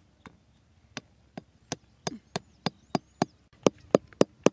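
Hammer knocking small wooden stakes into the ground: a run of sharp knocks, about three a second, growing louder in the second half.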